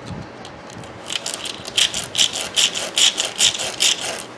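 A carbon motor brush rubbed back and forth on sandpaper in quick rasping strokes, about two or three a second, starting about a second in. The brush is being sanded down so it slides freely in its holder again, having stuck.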